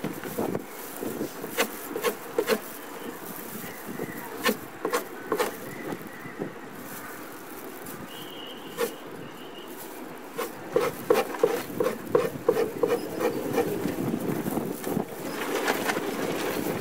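Hand scraper graining a raw, unbucked deer hide over a wooden post: quick repeated scraping strokes and clicks, sped up, over a faint steady hum. The strokes bunch into a fast run of about three or four a second in the later part.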